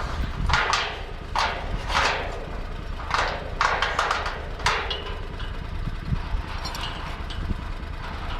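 Footsteps, roughly one every second and fading out after about five seconds, with a vehicle engine idling low underneath.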